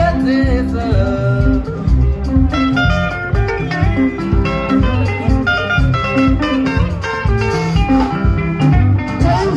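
Live sungura band playing an instrumental break: a lead guitar picks a quick run of short notes over a pulsing bass guitar and drums, between sung passages.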